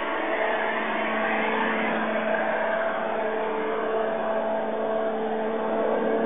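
Piko G-scale V100 (BR 112) model diesel locomotive running on a test run, with a steady hum made of a few held tones.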